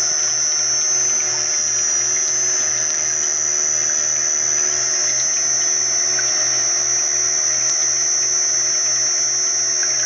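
M70 screw oil press running while pressing canola seed: a steady electric hum with a constant high whine and a low throb that repeats about three times a second.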